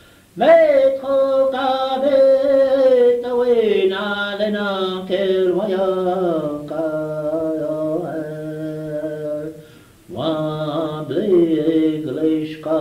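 A voice singing an unaccompanied Lakota chant, on an old cassette recording. It opens on a high note that slides down, then holds long notes that fall step by step. About ten seconds in it breaks off briefly, then starts again high and slides down.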